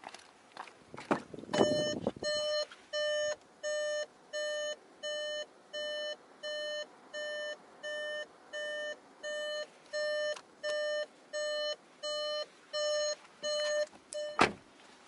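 Volkswagen Golf's cabin warning chime beeping steadily, about one and a half beeps a second, while the driver's door stands open. A door thump comes just before the beeping starts, and a loud door slam near the end cuts it off.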